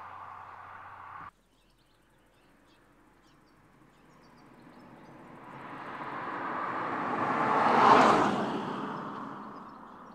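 A BMW 540i drives past on the road. Its tyre and engine noise swells over several seconds, peaks about eight seconds in, then fades. Before that, the sound of a car already driving away cuts off abruptly about a second in, and birds chirp faintly in the quiet gap.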